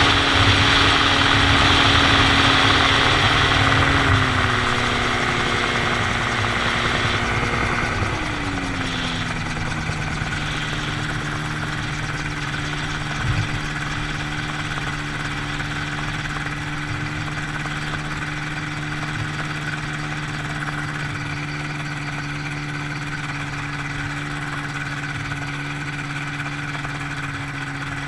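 Dominator gyroplane's engine and pusher propeller throttling back as the aircraft slows on the runway: the engine note drops in pitch about four seconds in and again about eight seconds in, then settles to a steady idle while taxiing. A loud rush of wind fades as it slows, and there is a single brief knock around the middle.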